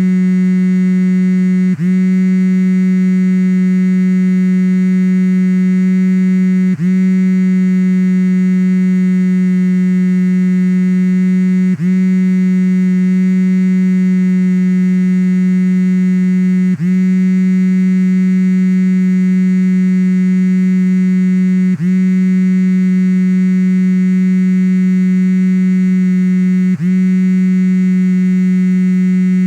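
iPhone 4 vibration motor buzzing as one continuous low-pitched drone, with a brief dip about every five seconds.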